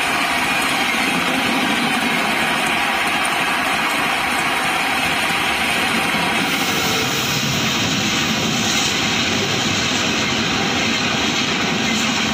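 Passenger train coaches passing at speed: a steady rushing rumble of wheels on rail, turning hissier about halfway through.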